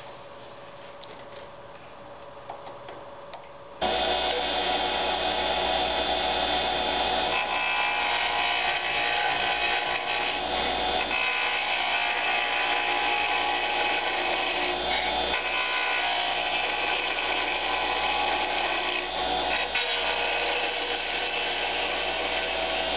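A few faint handling clicks, then from about four seconds in a wood lathe running steadily with a hand-held turning tool cutting a spinning wooden pen blank: a constant motor hum under the scraping hiss of the cut.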